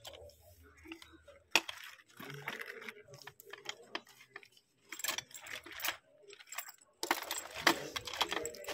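Leather belts with metal buckles and studs being handled and pushed about on a shelf: irregular clinking and rattling of metal with leather rustling, in bursts, the busiest near the end.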